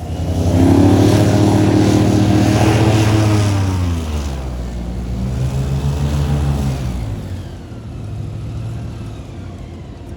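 Airboat engine and propeller revving, held high for a few seconds, then easing off with falling pitch. It revs up again more briefly and settles back to a lower run.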